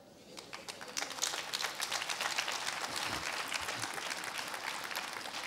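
Congregation applauding: many hands clapping, building up over the first second and then holding steady.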